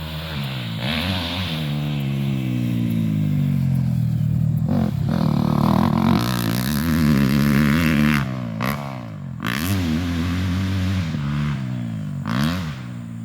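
Dirt bike engine revving hard, its pitch climbing and falling again and again as it accelerates through the gears. There are several sharp cracks in the second half.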